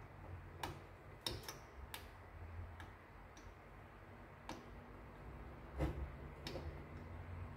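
Scattered small clicks and taps, about eight at irregular intervals, from a hand handling parts and wiring inside an opened plastic bread-maker casing; the loudest comes near the end.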